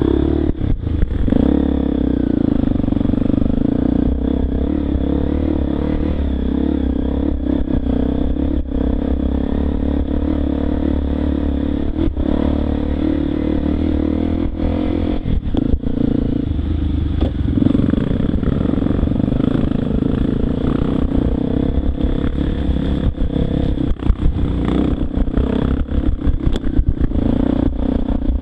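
Enduro dirt bike's engine running under the rider's throttle, the revs changing now and then, with frequent clatter and knocks from the bike over a rough dirt trail.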